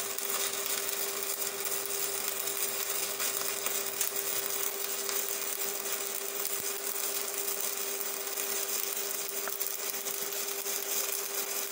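Stick (MMA) welding arc burning steadily on a 3 mm basic-coated LB-52U electrode at low current, about 90–100 A, from an Evrolux IWM190 inverter. It makes an even hiss and fine crackle over a constant hum, with no sputtering, because the arc is neither jumping nor wandering.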